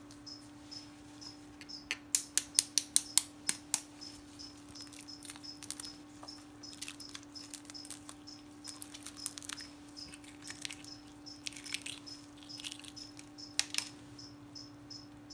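A flat metal blade tapping and cracking the shell of an incubated pheasant egg: a quick run of about ten sharp taps about two seconds in, then scattered cracks and scraping as the shell is picked open.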